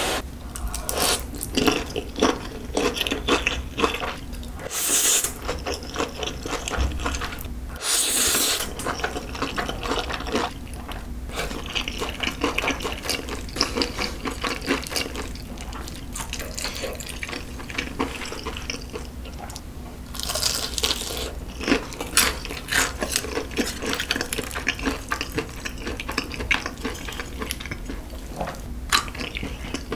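Close-miked eating sounds: spicy stir-fried instant noodles slurped in several long, hissing pulls, with wet chewing and sticky clicks from the sauce-coated food.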